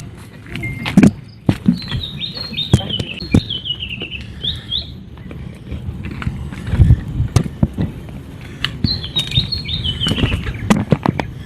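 A bird singing two phrases, each a quick run of notes stepping down in pitch, the first about two seconds in and the second near the end. Footsteps and sharp knocks run throughout and are the loudest sounds.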